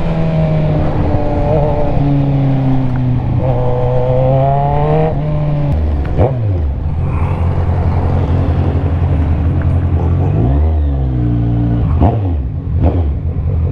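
Kawasaki Z1000's 1000cc inline-four engine running through an Orion aftermarket muffler while riding: a steady engine note that drops in pitch about six seconds in, then dips and rises again in revs near eleven seconds.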